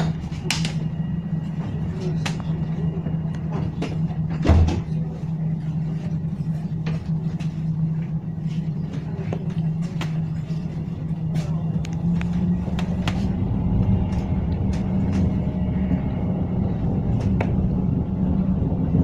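Inside a moving tram: a steady hum from the running tram, with scattered clicks and knocks from the wheels on the rails and one louder thump about four and a half seconds in.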